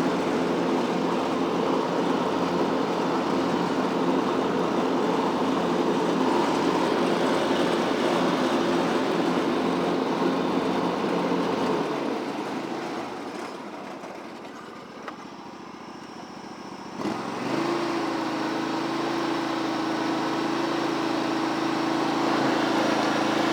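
John Deere LX178 lawn tractor's Kawasaki engine running steadily under mowing. About halfway through it fades down to a low level for a few seconds, then comes back up sharply to a steady run.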